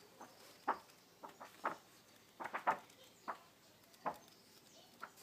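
Paper pages of a bound comic book being flipped one after another: a run of short, crisp flicks at irregular intervals, about ten in all.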